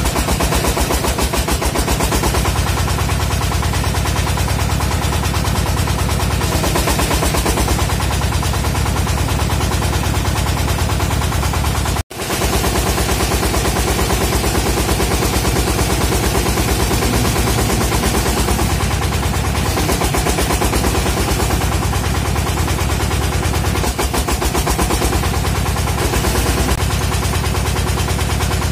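Engine of a well-drilling rig running steadily, with a rapid, even knocking beat. The sound cuts out for a moment about twelve seconds in, then resumes unchanged.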